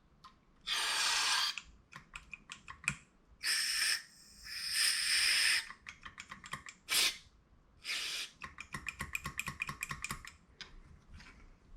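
Aerosol carb cleaner sprayed into a carburetor body's passages in about five short hissing bursts, the longest lasting over a second in the middle. Between the bursts come small clicks and rattles, with a quick run of clicking near the end.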